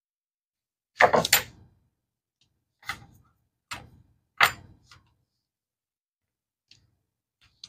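Cardboard cornstarch box being handled and its flap worked open: a loud cluster of sharp cardboard knocks and crackles about a second in, then three single sharp ones roughly a second apart, and two faint ticks near the end.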